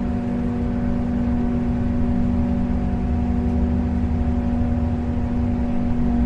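Boat engine running steadily, a constant low hum over a rumble with no change in speed.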